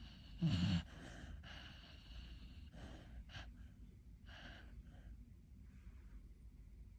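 A sleeping dog snoring: one short, loud snort about half a second in, then several softer, uneven breaths.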